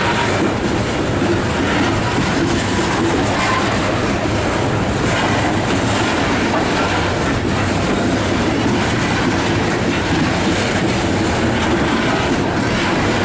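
Coal hopper cars of a freight train rolling past: a steady noise of steel wheels on rail, with occasional clicks.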